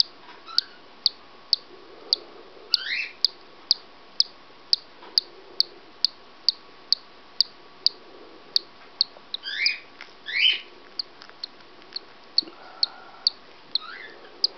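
Cockatiel chick peeping from inside its pipped egg: a few short rising peeps, two close together about ten seconds in. Under them, steady sharp clicks come evenly about twice a second.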